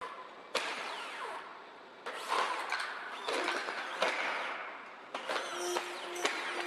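Boston Dynamics Atlas humanoid robot's hydraulic actuators whining, with gliding pitches and a hiss, as it pushes itself up off the floor and stands. A few sharp knocks of its feet and limbs on the concrete come through, and a steady hum joins late on.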